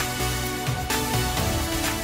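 Music with a steady beat and held notes.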